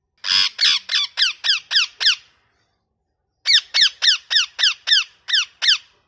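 Ringneck parakeet giving two runs of loud repeated calls, about four a second, each call falling sharply in pitch, with a pause of about a second between the runs.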